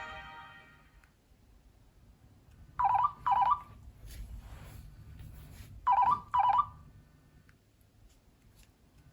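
Nokia C7-00 ringtone sounding as a telephone-style double ring: two short bright pulses about half a second apart, repeated once about three seconds later. A previous ringtone fades out in the first second.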